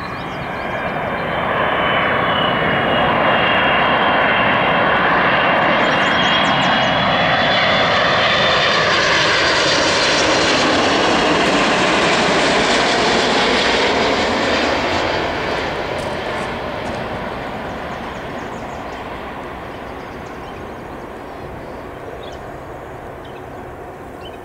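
Airbus A330-200's Rolls-Royce Trent 700 turbofan engines as the airliner passes low overhead on landing approach. A high whine drops in pitch as the engine noise builds, stays loud for about twelve seconds, then slowly fades as the jet moves off toward the runway.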